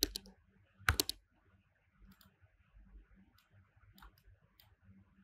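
Computer keyboard and mouse clicks as a word is typed in. There is a quick cluster of clicks at the start and again about a second in, then a few faint, scattered taps.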